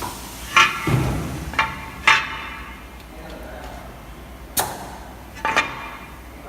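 A series of sharp clacks and knocks, about six, each with a brief hiss, as the double-head aluminium cutting saw is set up for a test cut; no saw blade or motor running is heard.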